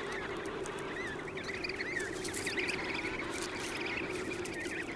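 Emperor penguin colony calling: a continuous chorus of many overlapping high, wavering chick whistles over the steady din of the colony.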